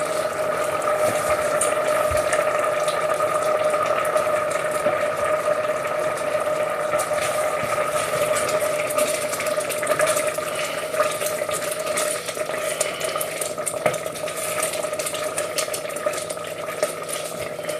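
Pans simmering on the hob, the stock and risotto bubbling and crackling steadily, over a constant steady hum.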